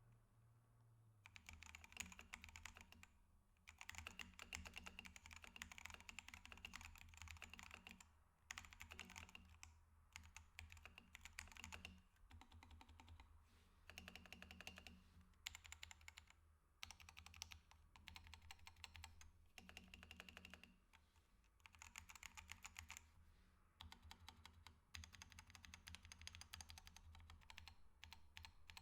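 Typing on a RAMA Works M65-B aluminium 65% mechanical keyboard with Halo Clear tactile switches and OEM-profile dye-sub PBT keycaps: quiet, rapid key clacks in runs of a second to several seconds, with short pauses between them.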